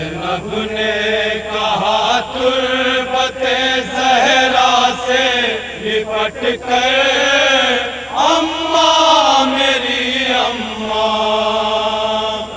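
Men chanting a noha, a Shia mourning lament in Urdu, led by one amplified male voice singing a slow, wailing melody with long held notes.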